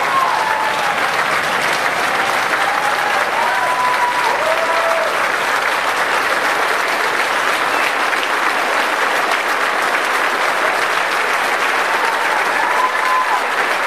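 Congregation applauding without a break, with a few voices calling out over the clapping.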